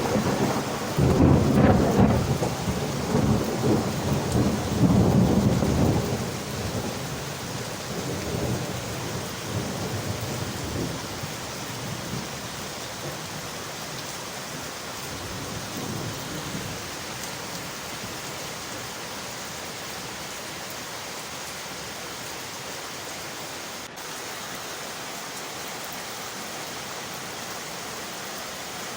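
Steady rain, with a roll of thunder rumbling at the start that fades away over the first several seconds, leaving the even hiss of rain.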